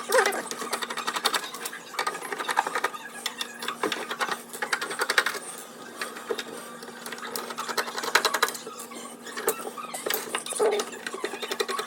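Screws being backed out of a coffee machine's casing with a screwdriver: rapid clicking in about four bursts, over a faint steady hum.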